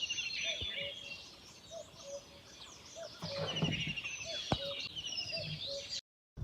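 Several songbirds chirping and trilling, with another bird's low short note repeating about twice a second.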